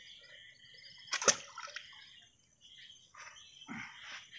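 A homemade rubber-powered bamboo fish gun fired into shallow pond water: one sharp snap and splash about a second in as the arrow is released, then a softer splash near the end. Faint chirping throughout.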